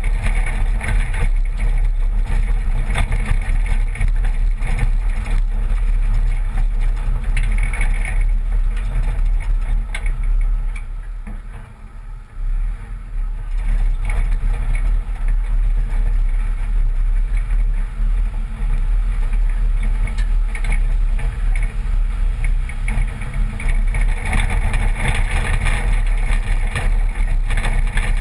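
1986 Toyota pickup driving over a rough, rocky dirt track, heard from a camera on the outside of the truck near the front wheel: a steady, loud rumble of tyres on gravel with wind buffeting the microphone. It eases for a couple of seconds around the middle.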